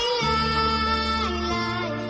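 A short ringtone tune playing: a melody over held bass notes that change about every second.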